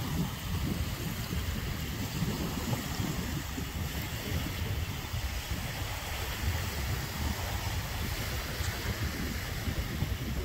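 Small waves washing onto a sandy beach, with wind buffeting the microphone in a steady low rumble.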